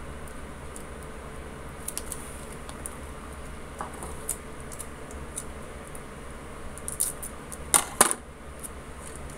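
Light clicks and taps of scissors, packing tape and paper being handled on a wooden table, with two sharper clicks close together near the end.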